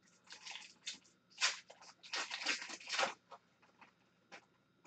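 Foil wrapper of a hockey card pack being torn open and crinkled by hand, in irregular bursts of crackle for about three seconds, followed by a few light ticks as the cards are handled.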